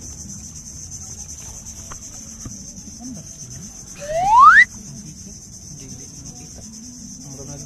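Steady high-pitched chorus of crickets in the mangroves. About four seconds in, a person gives one loud upward-rising whoop lasting about half a second.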